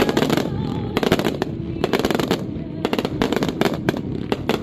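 Fireworks display going off in rapid volleys: a dense run of sharp cracks and pops from shells firing and bursting. It thins briefly about two and a half seconds in, then picks up again.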